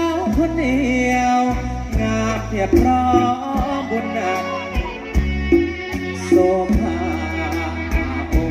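Live band music with a heavy bass line and regular drum hits under a bending melodic lead, with no sung words.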